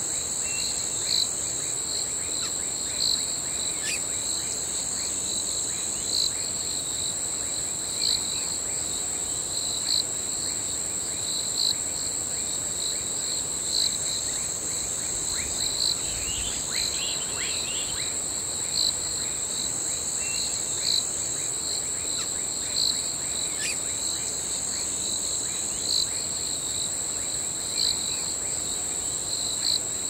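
Crickets chirping in a steady night chorus: one high continuous trill over a lower one that swells into a louder chirp about every two seconds.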